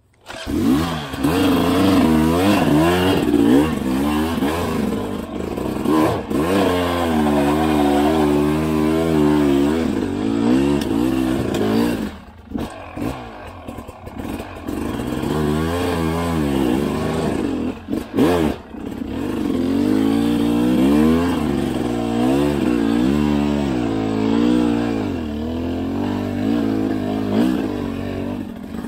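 Dirt bike engine under hard riding, its revs surging and dropping again and again, with the throttle shut briefly twice, about twelve and eighteen seconds in. A few sharp knocks sound through the engine noise.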